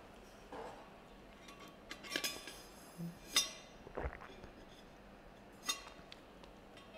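About five faint clinks and light knocks spread over several seconds, a couple of them ringing briefly, as a black drinking cup or tumbler is handled and lifted to the mouth.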